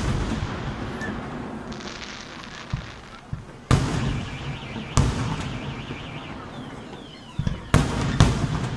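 Aerial fireworks shells bursting in a series of deep booms, four loud ones a second or more apart, each trailing off in a long rumbling echo. A crackling shower sounds between the early bursts.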